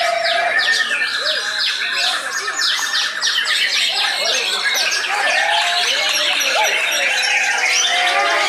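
Many caged songbirds singing at once, a dense chorus of overlapping chirps, fast trills and whistled glides.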